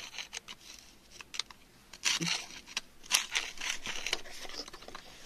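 A pointed tool scraping and picking at wet, gravelly mud: a run of small clicks and gritty scratches, with louder scrapes about two seconds in and again about three seconds in.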